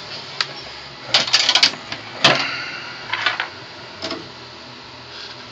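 Keys on a Compaq C700 laptop's keyboard being pressed during start-up to keep it from booting straight into Fedora: irregular sharp clicks, with a quick run of several about a second in and the loudest single click a little past two seconds.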